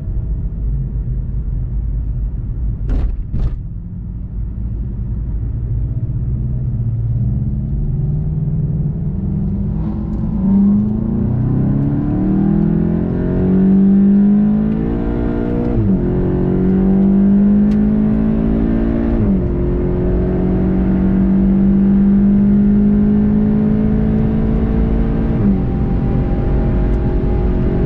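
In-car sound of a VW Golf 7 GTI TCR's turbocharged four-cylinder engine, running low and even at first, then pulling hard under full acceleration with its pitch rising through the gears. Three upshifts in the second half, each a sudden drop in pitch. Two short clicks about three seconds in.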